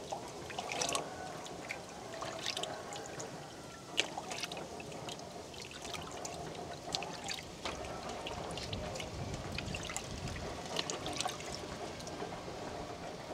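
Water trickling and splashing as a hand swishes it over a tilted gold pan into a small steel bowl sitting in a basin of water, with scattered drips and small splashes throughout. The water is washing very fine floating gold off the pan.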